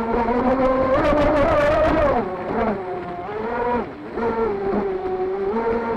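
Electric motor of a 38-inch RC boat whining under throttle, heard from on board over water and wind noise. The whine eases off and drops in pitch about two seconds in, then holds a lower steady pitch.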